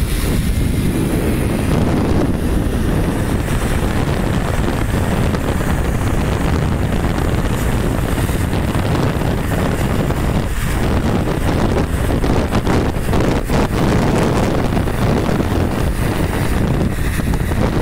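Wind rushing and buffeting over the microphone of a phone held at a moving car's window, with road noise underneath.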